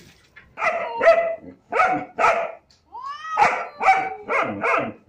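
German shepherd barking at close range, about eight sharp barks mostly in quick pairs, with a short rising cry about three seconds in.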